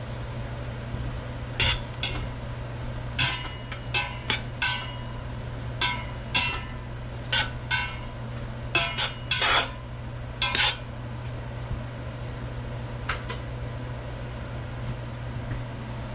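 Metal utensil stirring in a stainless steel stockpot, clinking and scraping against the pot's sides and bottom in irregular clusters of sharp, briefly ringing clinks, which stop about 13 seconds in. A steady low hum runs underneath.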